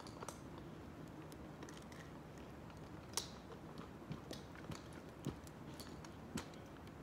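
Quiet outdoor background noise with scattered small sharp clicks and snaps, several seconds apart, the loudest about three seconds in.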